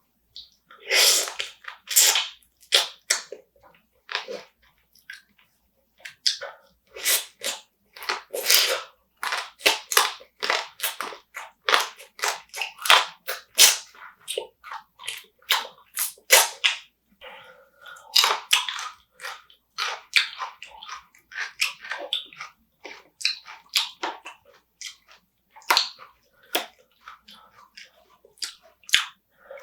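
Close-up eating sounds of spicy marinated raw crab: irregular wet chewing, biting and smacking with crunches, in quick clusters with short pauses.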